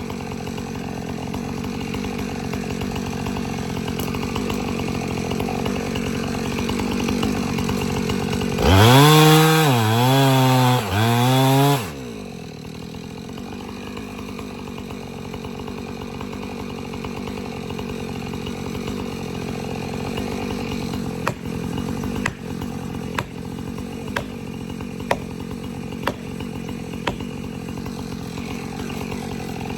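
Chainsaw running through the whole stretch. For about three seconds near the middle it is at full throttle, its pitch dipping and recovering as the chain bogs and frees in the wet elm wood. Later it runs more quietly, with a run of short sharp snaps.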